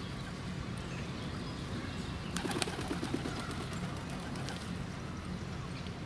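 Birds calling faintly in a park over a steady low hum, with a short run of sharp clicks about two and a half to three seconds in.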